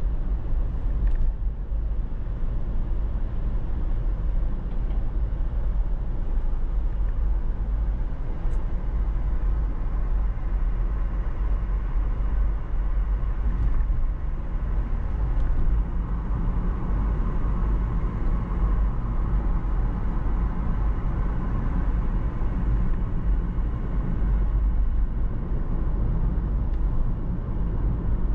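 A car driving along a road: steady low rumble of engine and tyre noise, with a slight swell in the road hiss about two-thirds of the way through.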